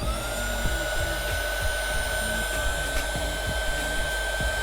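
Electric heat gun switched on: its motor whine rises quickly and then holds steady under the rush of blowing air, as it heats the phone's back glass to soften the adhesive.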